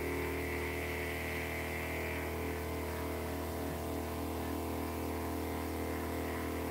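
Swell Reptile rain system pump running steadily with an even hum, turned up from its lowest setting, with water hissing out of the spray nozzles.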